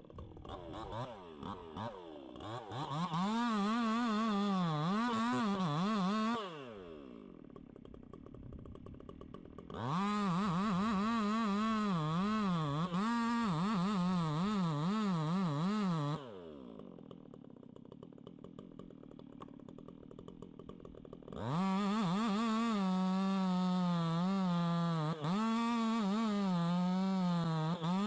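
Chainsaw opened up to full throttle three times, its pitch wavering up and down while running hard, as when the chain is cutting into wood. Between the runs it drops back to a quieter idle.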